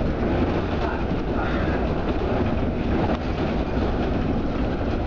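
Inside a Jelcz 120M/2 LPG city bus under way: the engine and running gear make a steady low rumble, with road noise and light rattles from the body and fittings.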